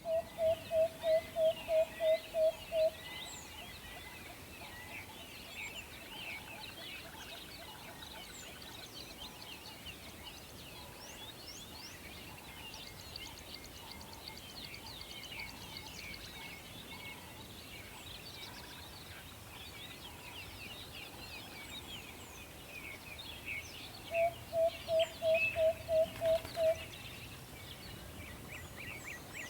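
An owl hooting in quick runs of about nine even, same-pitched hoots, one run at the start and another near the end. Between the runs, a busy chorus of high chirps runs on steadily.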